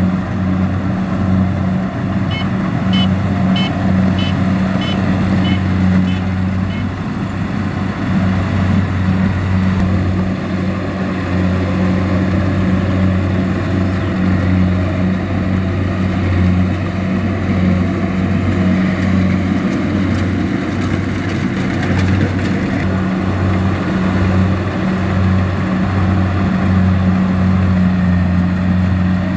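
Tracked rice combine harvester's engine running steadily under harvesting load, a loud continuous drone. A run of short, evenly spaced high beeps sounds for a few seconds near the start.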